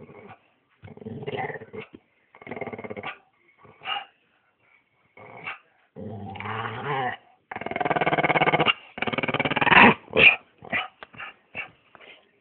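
Staffordshire bull terrier growling in repeated bouts of about a second each, building to a longer, louder growl in the second half, followed by a run of short, quick sounds near the end.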